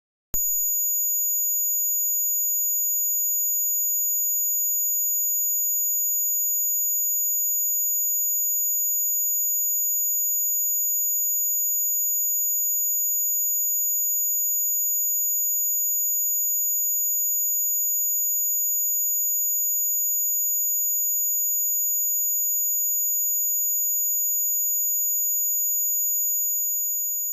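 Simulated dog whistle: a synthesized, very high-pitched steady tone that starts abruptly and holds one unchanging pitch, then begins to fade out near the end.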